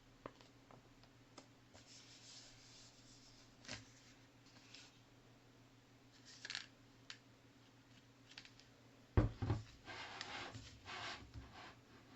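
Small handling noises: scattered clicks and brief rustles, then a thump about nine seconds in followed by a few seconds of rustling.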